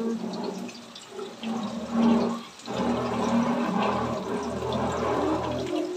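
Chicken pakoras deep-frying in hot oil in an iron kadai, a steady crackling sizzle with small pops, over a steady low hum.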